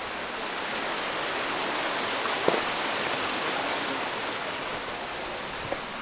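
Steady rushing of a rocky mountain creek, an even hiss of running water, with a short sharp tap about halfway through and another near the end.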